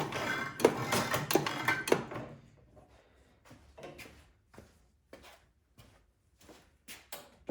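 Metal clicking and clunking of a snowblower's gear-select shaft and shift linkage being worked back and forth to spread fresh oil. A quick rattling run of clicks for about two seconds, then single fainter clicks about twice a second.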